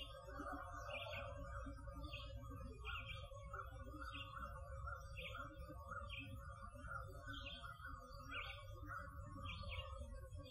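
A bird repeating a short high chirp about once a second, over a steady low rumble and a faint steady hum.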